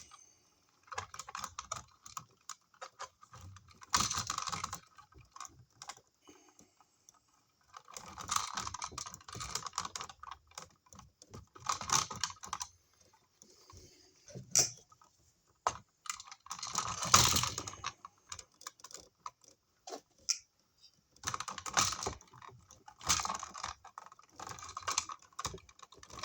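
Irregular bursts of small clicks, taps and scraping as wires are worked and bent inside an electrical outlet box, in bunches of a second or two with quiet gaps between.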